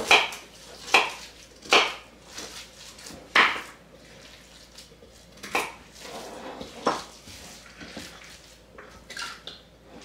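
Kitchen knife dicing carrots on a wooden cutting board: sharp, irregular chops, roughly one a second with a longer gap in the middle.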